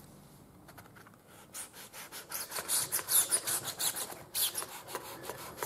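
Long knife paring slivers off a saddle knee-roll block, thinning it down in quick, repeated scraping strokes that start about a second and a half in.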